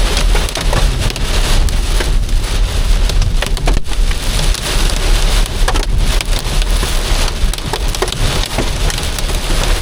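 Heavy storm rain pelting a car, heard from inside the cabin: a dense steady patter with many sharp clicks of individual impacts on the body, over a low rumble.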